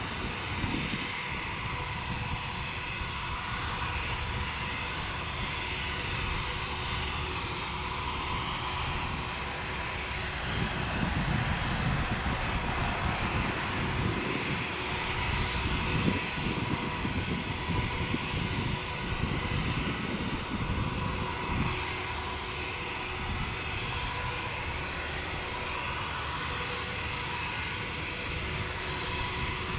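Airbus A320's IAE V2500 turbofan engines running at low idle thrust, a steady whine of several held tones over a low rumble.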